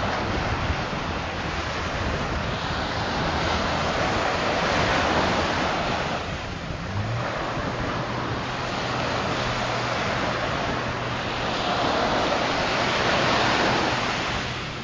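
Surf washing and breaking along the shore, a dense rushing noise that swells twice and eases, with wind buffeting the microphone.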